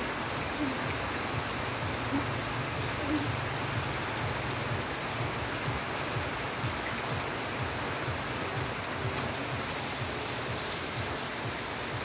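Steady heavy rain falling on leafy garden plants, with scattered drops ticking close by.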